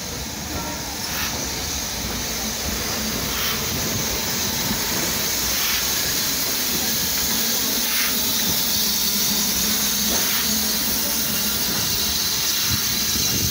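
BR Standard Class 9F steam locomotive Black Prince hissing steam steadily, growing a little louder over the first few seconds.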